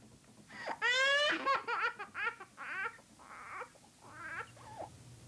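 Toddler crying: one long, high wail about a second in, then a run of shorter sobbing cries that grow fainter.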